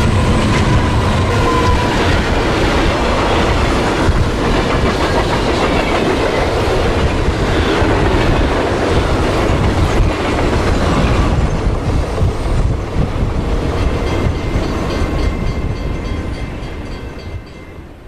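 A train passing in a sound-effect recreation: the tail of a Nathan K1L13 + K24 locomotive air horn drops in pitch in the first second or two as it goes by, then the rumble and clickety-clack of the passing train, fading away near the end.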